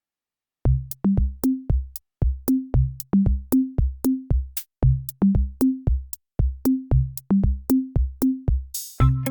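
Electronic music: after a short silence, a drum-machine beat of short pitched low drum hits, about four a second. Near the end a brief swish leads into fuller synthesizer music.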